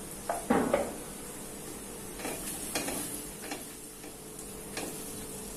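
Ground pepper masala being stirred into frying onions in a stainless steel frypan with a spatula: several short scraping strokes against the pan over a light sizzle. A couple of knocks about half a second in as the mixer jar is put down.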